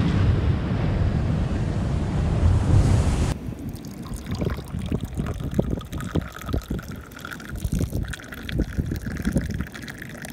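Wind buffeting the microphone over breaking surf, cutting off about three seconds in to tea poured from a metal teapot held high into a small tea glass: a steady trickling fill, broken briefly about eight seconds in.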